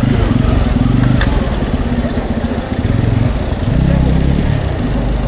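Busy city street ambience dominated by a loud, low rumble, with a single sharp click about a second in.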